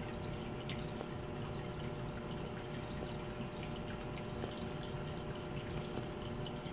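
Aquarium water trickling and dripping steadily, typical of a filter's return flow splashing into the tank, with a faint steady motor hum underneath.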